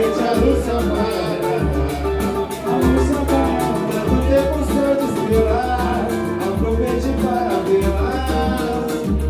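Cavaquinho strummed with a second plucked string instrument while a man sings, over a steady low bass beat about once a second.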